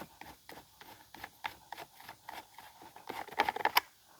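Light clicks, taps and rattles of hands handling a Stihl 064 chainsaw's plastic and metal parts, busier and louder about three seconds in.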